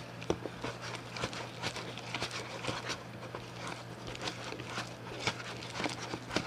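Slime mix being stirred in a bowl as it thickens with liquid-detergent activator: a run of irregular soft clicks and squelches.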